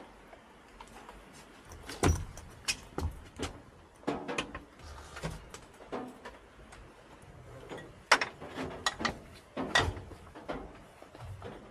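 Bicycle being lifted and fitted into the back of a car: a string of separate knocks, clanks and rattles of the bike against the vehicle, the sharpest about two seconds in and near eight and ten seconds.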